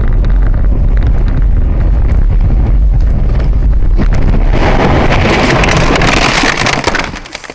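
Steady low road and engine rumble inside a car's cabin as it drives on a snowy road. From about four and a half seconds a loud rushing, scraping noise follows as the car leaves the road and ploughs into deep snow. It dies away sharply near the end.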